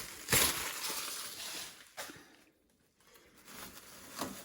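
Rustling and handling noises of unpacking, with a sharp knock near the start and a brief lull in the middle.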